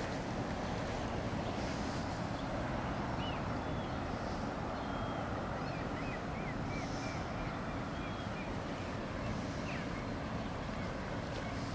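Steady low rumble of distant traffic, with a bird chirping a short run of quick high notes in the middle.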